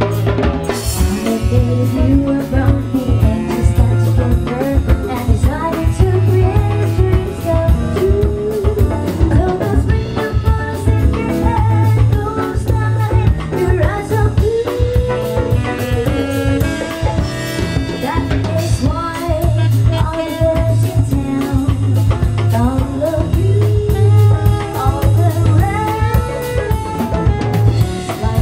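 A live band playing a song: a woman sings lead into a microphone over a drum kit and electric guitar, with a strong, steady low-end pulse underneath.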